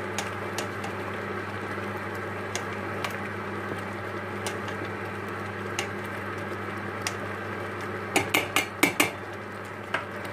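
A spatula stirring a thick goulash in a stainless steel pot, scraping and now and then knocking against the metal side, with a cluster of louder knocks about eight to nine seconds in. The stirring works in cornstarch to thicken the boiling stew, over a steady low hum.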